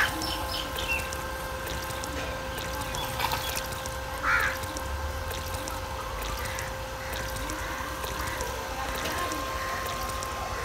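Small electric water pump running with a steady hum while water trickles out, with two brief louder sounds, one at the start and one about four seconds in.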